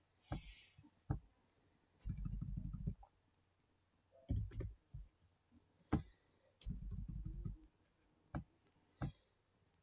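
Computer mouse clicks and keyboard key presses, a few separate sharp clicks spread out as numbers are typed into text boxes. Two low hums of about a second each come in, one about two seconds in and one near seven seconds.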